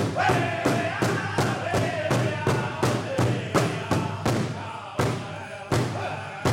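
Powwow big drum struck in unison by several drummers with padded drumsticks, about three beats a second, with a drum group singing over it. After about five seconds the beat slows to roughly one stroke every 0.7 s.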